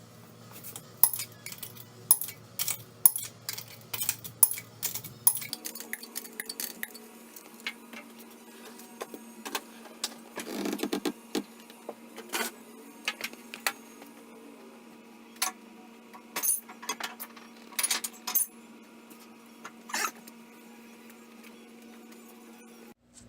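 Metal tools and parts clinking and clattering: a quick run of sharp clicks over the first five seconds, a short rattle about ten seconds in, then scattered clinks, over a steady low hum.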